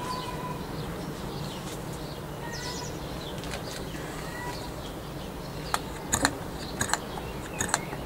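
Birds chirping faintly in short whistled notes, then several sharp clicks in the last two seconds, louder than the chirps.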